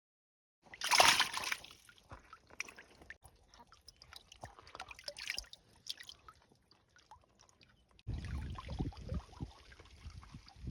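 A splash of water, then scattered drips and small trickles. From about eight seconds in, a low rumbling noise joins them.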